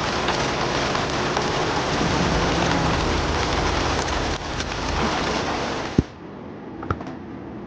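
Steady rain falling, an even hiss that stops abruptly about six seconds in with a sharp click, leaving a much quieter background with a few faint ticks.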